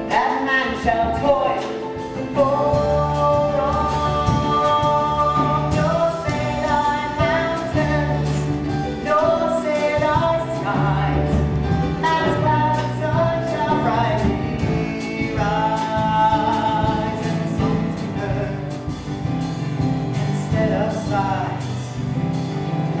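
Live musical-theatre song: voices singing a sustained melody over a band with a bass line and a steady drum beat.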